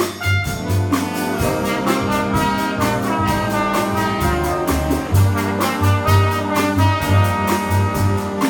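Middle-school jazz ensemble playing a Latin jazz chart: trumpets and trombones carrying held and moving notes over a plucked bass line and steady drum-kit strokes.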